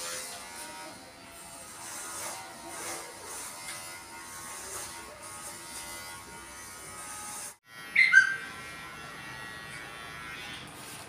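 Electric hair clipper buzzing steadily while trimming hair. The sound cuts out briefly about two-thirds of the way through and a short, loud, high sound follows right after.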